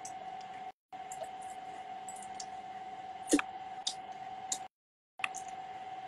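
A steady, fairly high electronic tone with faint hiss and a few sharp clicks, the loudest about halfway through; the sound cuts out completely for a moment twice, as a live-stream audio feed dropping out does.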